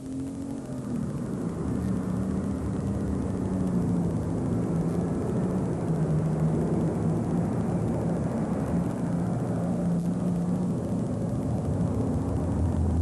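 Super stock pulling tractor's engine running flat out under full load through a pull. It grows louder over the first two seconds, then holds a strong, steady pitch that wavers only slightly.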